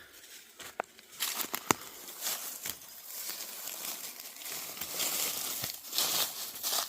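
Dry forest-floor leaves crunching and rustling, with a few sharp clicks in the first two seconds.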